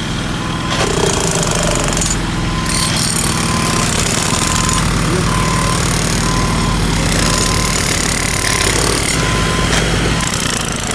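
Road-works machinery running loud and unbroken: a jackhammer-like hammering over a steady engine drone. A short beep repeats about once a second, like a reversing alarm.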